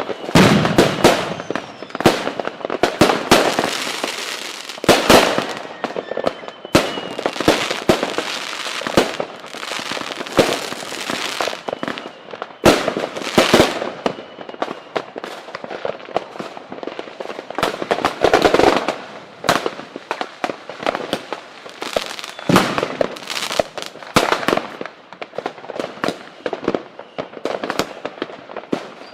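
Fireworks and firecrackers going off continuously: dense, irregular volleys of sharp cracks and bangs, bunched into loud clusters. A few faint falling whistles run through them.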